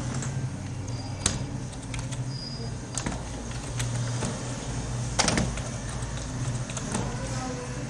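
Computer keyboard keys clicking irregularly as a name is typed, with one louder keystroke about five seconds in. A steady low hum runs underneath.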